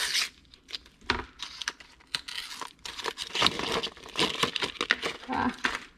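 Medicine packaging being opened by hand: plastic and foil crinkling and tearing in quick, irregular crackles.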